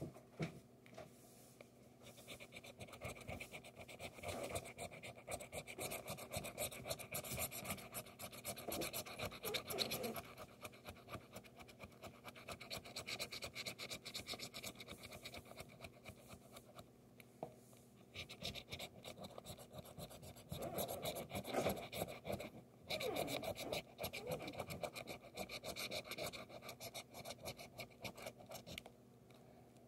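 A coin scratching the latex coating off a paper lottery scratch-off ticket, in runs of rapid back-and-forth strokes with brief pauses between them.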